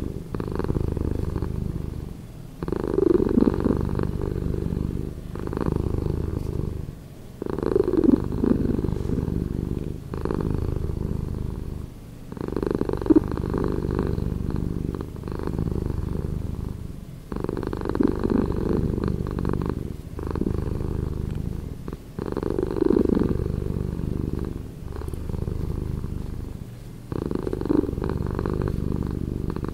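Domestic cat purring, slowed down, a low pulsing rumble that swells and dips in repeated phases about every two and a half seconds.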